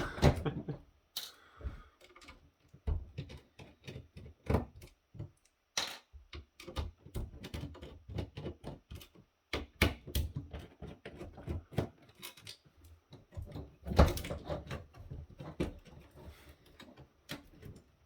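Screws being taken out of a small plastic electronic device by hand: irregular clicks, taps and scrapes of the screwdriver and parts, with a few louder knocks, the loudest about fourteen seconds in.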